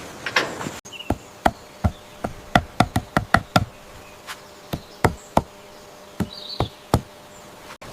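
A run of irregular sharp knocks, about twenty in a few seconds and bunched most closely near the middle, over a faint steady hum.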